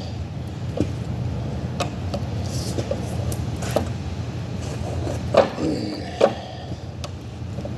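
Scattered metal clinks and knocks of hand tools working on a steel valve, with two louder knocks about five and a half and six seconds in, over a steady low hum.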